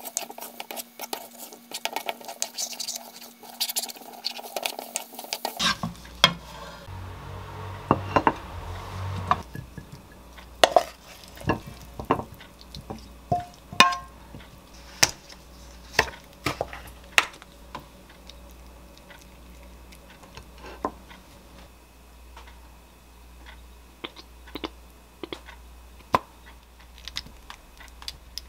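A wooden spatula stirring and scraping scrambled egg and cherry tomatoes in a nonstick wok, over a frying hiss for the first five or six seconds. The hiss then stops and a run of sharp knocks and taps follows as the food is scraped out of the wok onto a plate, thinning to light clicks near the end.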